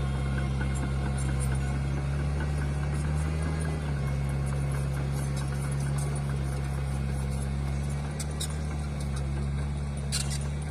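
Mini bulldozer's diesel engine running steadily, with a brief sharp click near the end.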